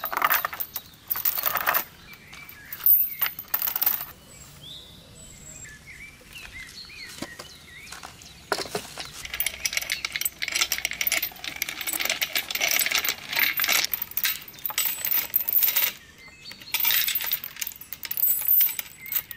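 Runs of quick, light metallic clinking and clicking: a short burst near the start, a long dense run from about the middle, and another near the end, with quieter gaps between.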